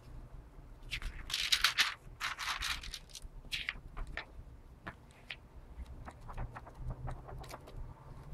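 Paper rustling and crackling as the pages of an antique book are handled and turned: three short bursts in the first half, then scattered small clicks and taps.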